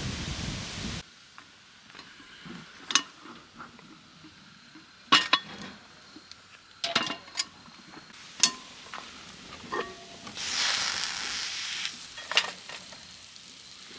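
Camp cooking: metal utensils clinking and scraping against a pan a handful of times, with a short burst of sizzling about ten seconds in. The first second is outdoor rustling noise.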